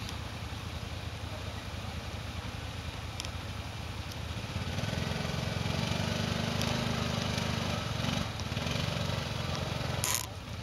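Quad bike (ATV) engine running low, then working harder and louder from about halfway as the bike is driven and pushed up out of the mud, with a brief dip before it eases off near the end. A sharp knock about ten seconds in.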